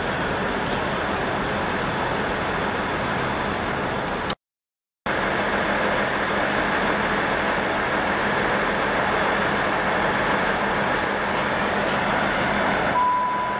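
Steady rumble and hiss of a busy railway station with trains standing and running, broken by a dead silence of about half a second a little over four seconds in. A short steady beep sounds near the end.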